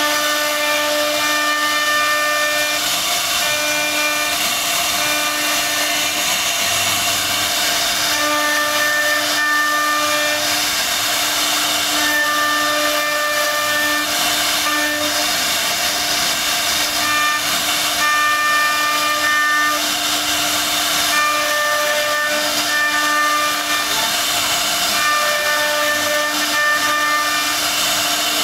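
CNC router spindle running and carving a wood panel: a steady whine over a loud cutting hiss, with higher tones coming and going every second or two.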